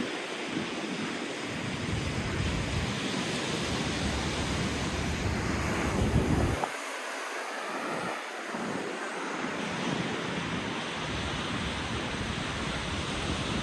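Ocean surf washing onto a rocky sand beach, with wind buffeting the microphone in low gusts that drop away about six and a half seconds in.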